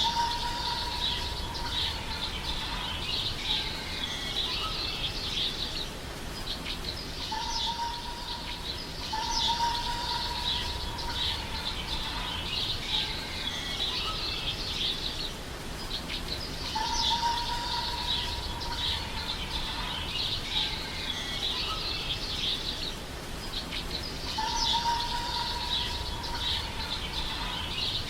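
Birds chirping and twittering continuously, with a longer, steady whistled note that returns about every seven to eight seconds.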